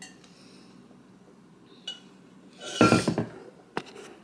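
Drink containers handled on a table: a short light clink about two seconds in, a louder half-second clatter about three seconds in, and a sharp click near the end.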